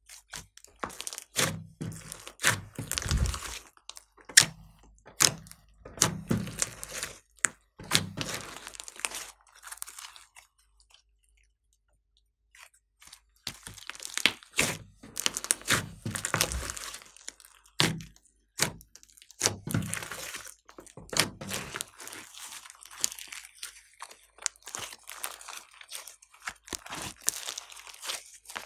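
Hands squeezing, folding and stretching a large lump of glossy slime mixed with other slimes, giving clusters of sticky crackles and pops. There is a silent gap of about two seconds partway through.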